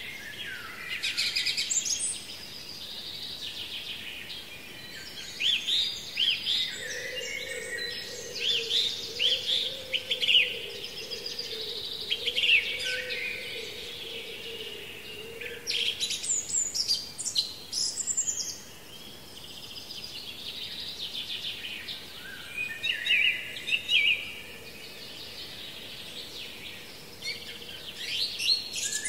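Several songbirds singing in repeated bursts of quick, high chirping phrases. A faint steady hum sits underneath for several seconds in the middle.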